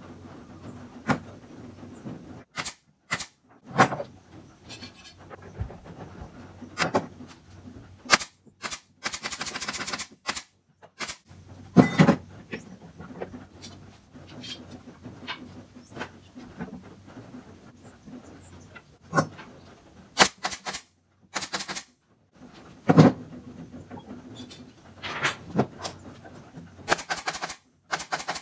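Scattered knocks and clicks of parts being handled and fitted, with a few short runs of rapid clattering.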